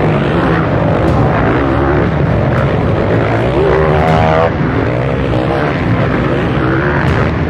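Motocross bikes racing past, their engines running loud and continuous as they climb and jump a dirt hill. About three and a half seconds in, one bike revs up sharply, and the rev stops abruptly a second later.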